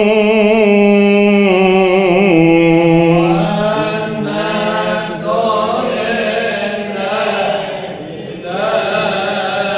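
A solo male voice chanting a long wordless melisma in Coptic liturgical style, the closing cadence of a chanted Gospel reading. It holds one note with vibrato for about two seconds, then moves through a winding run of pitches, with a brief dip near the end.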